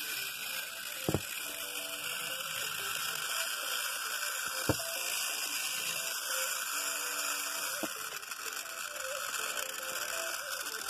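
Battery-powered toy train engine running along plastic track, a steady whirr of its small motor and gears, with three sharp clicks: about a second in, near the middle, and about eight seconds in.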